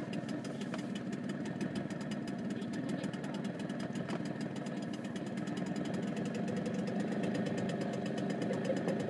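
A small boat's engine running steadily at constant speed, a fast, even chugging.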